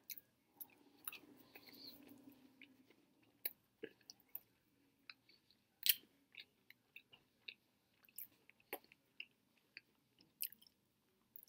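Faint, close chewing of a soft macadamia nut cookie: irregular mouth clicks and smacks, one louder click about six seconds in.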